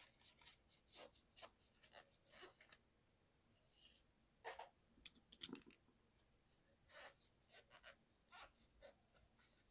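Quiet, irregular scratching, rubbing and small clicks of a mechanical keyboard being cleaned by hand, with a louder cluster of scrapes and knocks about halfway through.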